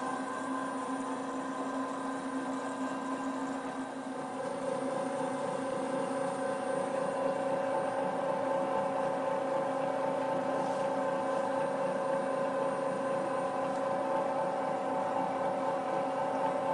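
Electric motor of an Arcobaleno AEX18 tabletop pasta extruder running with a steady hum. About four seconds in its tone shifts higher and it gets slightly louder.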